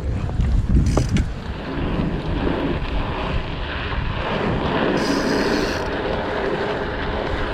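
Wind rushing over the microphone during a ride on a dirt jump bike, a low buffeting rumble that is strongest in the first second, with a sharp click about a second in.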